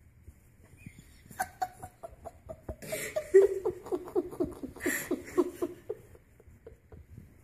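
A person laughing in quick, breathy bursts, loudest about three and five seconds in, dying down near the end.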